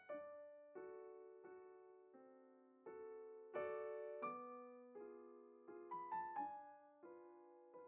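Soft background piano music: slow chords and single notes struck one after another, each left to fade.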